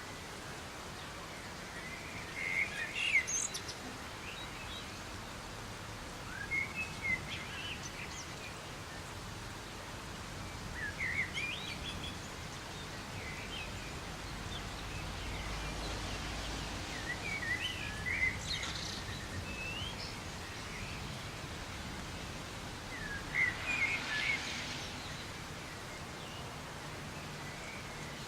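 Soft rain falling as a steady hiss, with a songbird singing short chirping phrases about every five seconds over it.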